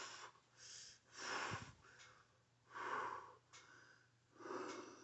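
A person breathing heavily, with loud breaths in and out coming in short bursts about every second or so.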